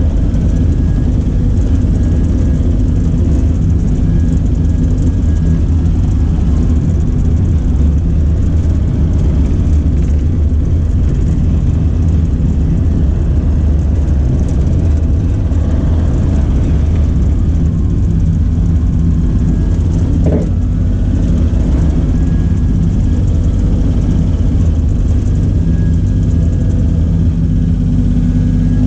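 Cat mini excavator's diesel engine running steadily at a constant speed.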